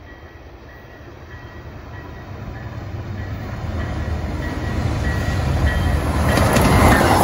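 Amtrak passenger train approaching, its rumble growing steadily louder as it nears, with the wheels clattering loudest near the end.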